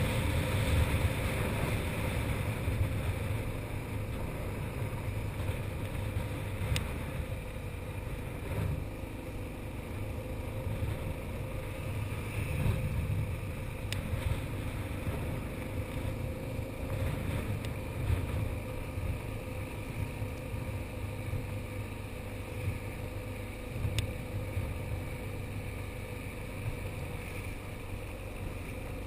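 Motorcycle engine running steadily while riding, heard from a camera mounted on the bike, with a rumble that rises and falls.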